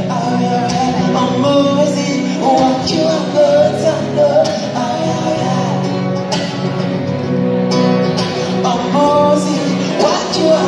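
Live band music with a singer over guitar, bass and drums, loud and steady, heard from among the audience in a large hall.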